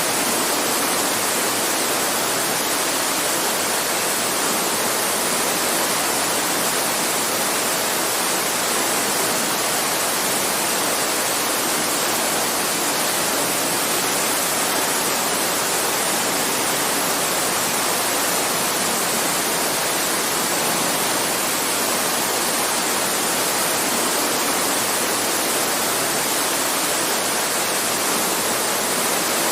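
Campfire ambience: a steady, even hiss with no distinct loud pops.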